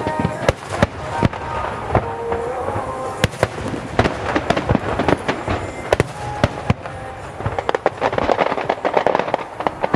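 Fireworks shells bursting in quick succession: many sharp bangs at irregular intervals, with crackle filling the gaps between them.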